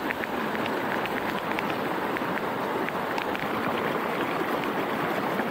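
Steady rush of a rain-swollen river, with scattered light ticks of falling rain.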